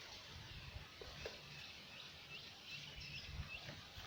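Faint outdoor ambience with small birds chirping now and then, short high chirps scattered throughout.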